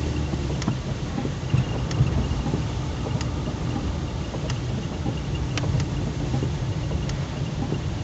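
Steady low rumble of a car's engine and tyres heard from inside the moving car, with a few sharp ticks scattered through it.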